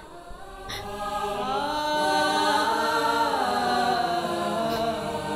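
Film background score: a sustained wordless vocal, chant- or choir-like, swelling in over about two seconds and holding long notes that slowly bend in pitch.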